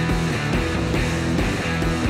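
Rock theme music with electric guitar and a steady beat.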